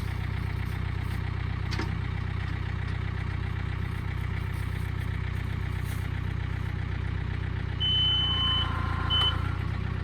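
A vehicle engine idling steadily. About eight seconds in, a high electronic beep sounds, once long and once briefly.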